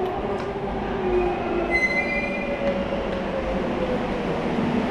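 Madrid Metro train running into the underground station: a steady rumble of the cars with a whine that slowly falls in pitch as it slows. A brief high metallic squeal about two seconds in.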